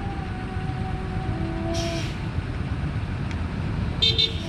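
Hino RK8 R260 tour bus running at low speed as it creeps out of a driveway, a steady engine rumble with a short hiss of released compressed air about two seconds in. A brief high beep near the end.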